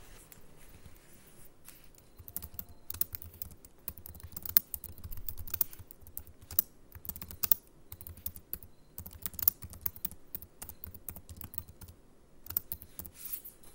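Typing on a computer keyboard: quick runs of key clicks broken by a few short pauses.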